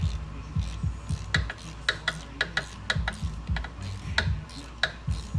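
Socket wrench clicking as it is worked back and forth, torquing the bolts of a freshly gasketed oil pan: a string of sharp, unevenly spaced clicks over a low steady hum.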